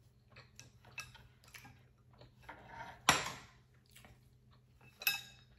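Close-up eating sounds: soft chewing and mouth clicks, then a sharp clatter of utensils set down on the dishes about three seconds in, and a ringing clink, as of a drinking glass, near the end.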